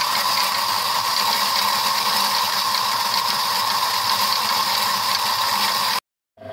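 Horizontal metal-cutting power saw sawing steadily through a 25 mm steel axle shaft, a continuous grinding, rasping cut that stops abruptly near the end.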